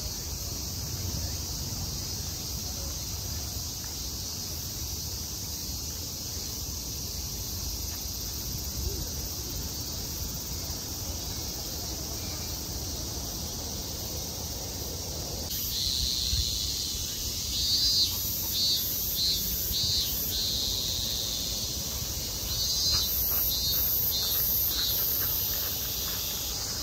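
Insects calling in the shrine's trees: a steady high drone, joined about halfway through by louder runs of pulsing, shrill calls, over a low outdoor rumble.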